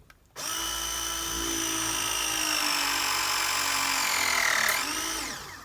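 Milwaukee M12 FORCE LOGIC 2473 press tool running a press cycle on a ProPress fitting: a steady motor whine that sinks slowly in pitch, swoops briefly near the end, then stops.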